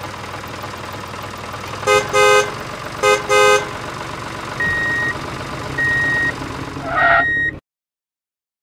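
Vehicle horn sounding two double toots over a steady low engine hum, followed by three short high beeps; the sound cuts off suddenly near the end.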